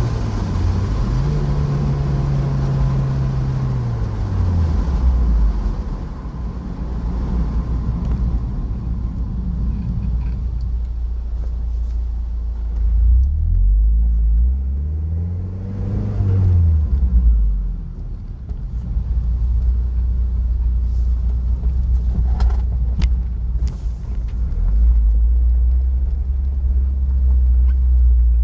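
Mazda MX-5's four-cylinder engine and road rumble heard from inside the cabin, the engine note climbing and then falling in the first few seconds and again about halfway through as the car speeds up and slows.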